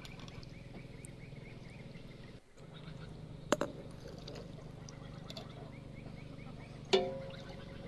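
Two sharp clinks with a short ring, from kitchenware being handled, over a steady low hum; the second clink, near the end, is the louder.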